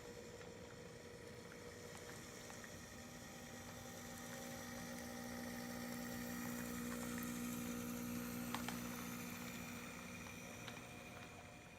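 HO scale model locomotive running on the layout: a steady motor hum that grows louder around the middle and then fades, with a few faint clicks.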